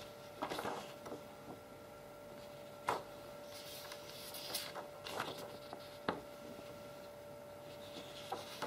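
Sheets of thin office paper, painted in oil, being handled and leafed through: brief crisp rustles and a few sharp taps, the loudest about three and six seconds in, over a steady electrical hum.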